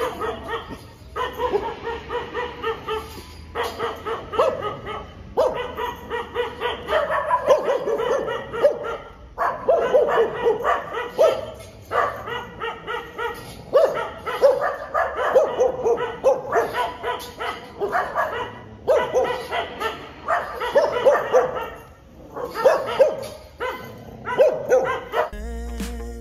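Dogs barking repeatedly, a long irregular run of short barks and yips. Music comes back in near the end.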